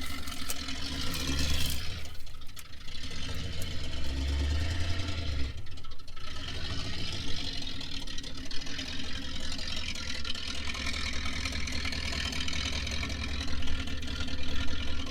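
A vehicle engine running near idle, with a few stronger low surges in the first five seconds.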